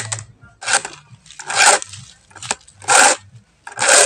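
Flat steel file rasping across a chainsaw's saw chain in four slow, even strokes, about one a second, with light clicks between. It is filing down the chain's depth gauges so the cutting teeth stand taller and can bite into the wood.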